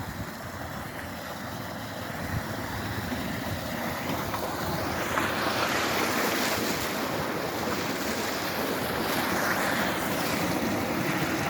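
Rushing noise of waves and wind, growing louder about five seconds in.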